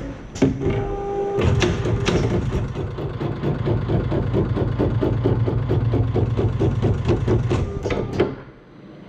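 ODM Super Sewer automatic book sewing machine running, its sewing head clattering in a fast even rhythm of about five strokes a second over a steady motor hum. It falls quiet for under a second near the end, then starts again.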